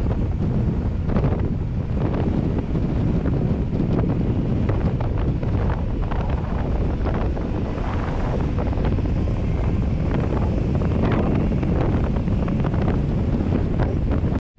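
Loud, steady wind buffeting the camera microphone while riding a bicycle fast downhill on a paved road. It cuts off abruptly near the end.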